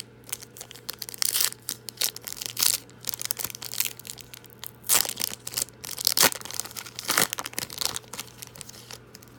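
Plastic foil wrapper of a trading-card pack being torn open and crinkled: a run of irregular crackling rips and crumples.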